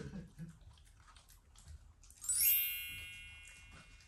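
A bright chime about two seconds in: a quick upward run of tinkling notes, like a swept bar chime, opening into a shimmering ringing chord that fades over about a second and a half.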